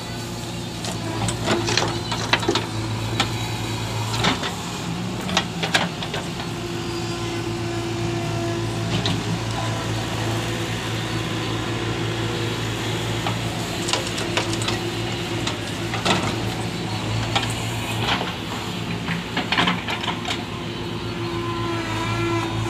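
JCB 3DX backhoe loader's diesel engine running steadily under load as the backhoe digs and dumps soil, with repeated short knocks and clatter from the bucket and falling earth.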